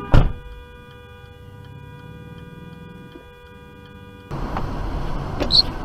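A sudden sharp thump, followed by a faint steady hum of several held tones with light ticking about three times a second. About four seconds in, it gives way to the steady road noise of a car driving, with a couple of short clicks.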